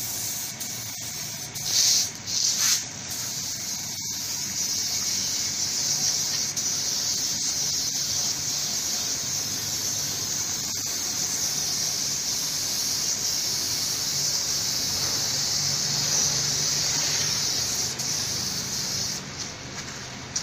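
Compressed-air paint spray gun hissing as it sprays base coat onto a car bumper: two short bursts about two seconds in, then a long steady spray that stops near the end.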